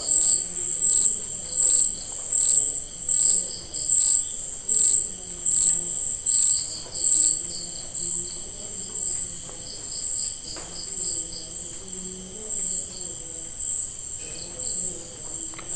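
Cricket chirping, about one high chirp a second over a continuous high trill; the chirps turn fainter about halfway through.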